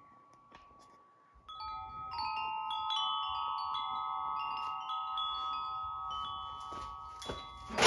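Wind chimes ringing: several tuned notes struck one after another, starting about a second and a half in, each left to ring on. A single sharp knock comes near the end.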